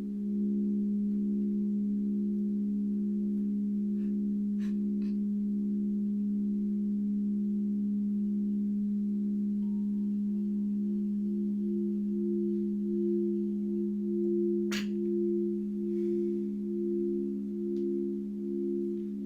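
Singing bowls held in a long, steady drone of several low tones, wobbling in a slow pulse that grows stronger in the second half. There is a single sharp click about fifteen seconds in.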